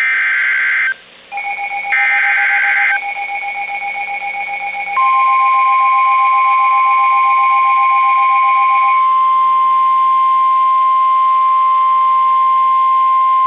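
EAS/NOAA Weather Radio alert signal: two short screeching SAME data bursts (the end of the digital header), then a pulsing alarm tone. It is overlapped from about five seconds in by the steady NOAA Weather Radio 1050 Hz warning alarm tone, which holds to the end. Together they announce a new warning, here a severe thunderstorm warning.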